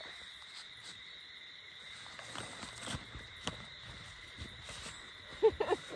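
Steady high drone of insects such as crickets, with faint rustling and soft footsteps on grass as someone walks through a screen tent's fabric door. A couple of brief pitched chirps stand out near the end.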